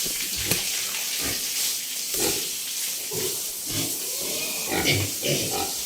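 Pigs grunting now and then over a steady hiss.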